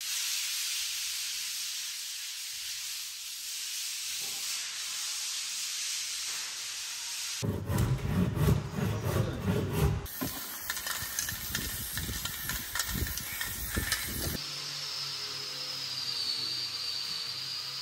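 Floor being scraped and sanded by hand, a steady hiss; then irregular knocks and clatter as a wooden door is handled; then, about fourteen seconds in, a small electric sander on wooden floorboards with a high, slightly wavering whine.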